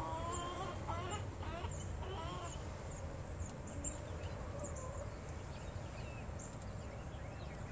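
Backyard chickens clucking softly in the first couple of seconds, with scattered high chirps of small birds over a steady low rumble of outdoor noise.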